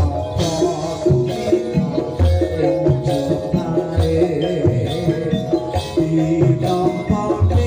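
Live Javanese jaranan gamelan music: drums beating a steady rhythm under ringing metallophones, with jingling percussion on top.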